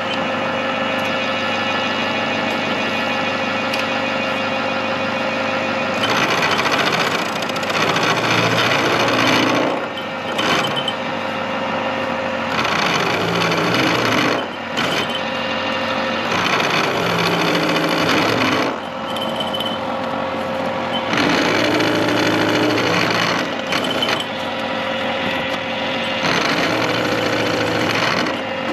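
Milling machine running with a steady whine while its cutter machines a 5-degree slope into a clamped workpiece. Louder, harsher stretches of cutting come and go several times as the cutter engages and clears the work.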